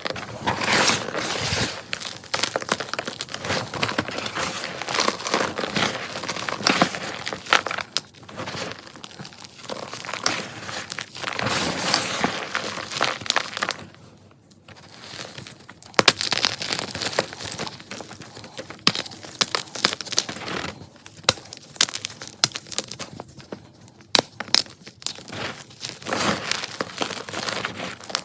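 Ader gym chalk being crushed: a continuous crackly crunching and crumbling full of sharp snaps, with a short lull about halfway through.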